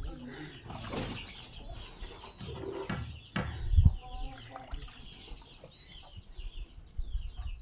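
Birds calling with many short, quick, repeated calls, with a few clicks and one loud low thump a little under four seconds in.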